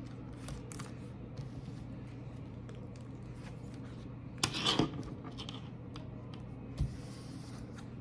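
Small plastic clicks and rubbing as a plastic laptop case is handled and fitted onto a laptop, with a short burst of clicking and scraping a little past halfway and one more click near the end.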